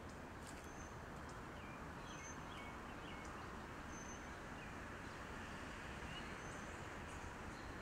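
Faint outdoor ambience: a steady low hiss with scattered short, high bird chirps.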